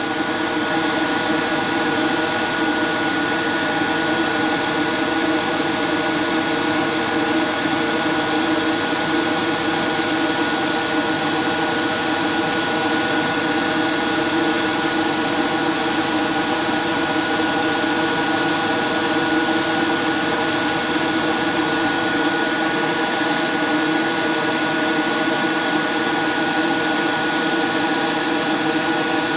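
Steady motor drone of a hobby spray booth's extraction fan, with an airbrush hissing in short spurts of air about eight times, one spurt longer than the rest, as violet paint is sprayed onto a model car body.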